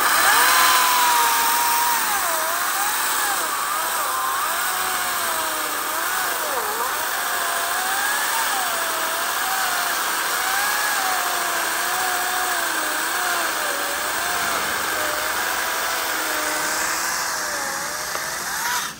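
Kobalt cordless chainsaw cutting through a tree trunk, its motor whine wavering up and down in pitch as the chain works through the wood. It cuts off suddenly at the end.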